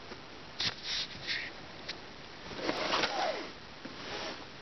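A cardboard parcel is handled and turned by hand, giving short rustling scrapes of cardboard and packing tape. A longer scrape comes about three seconds in.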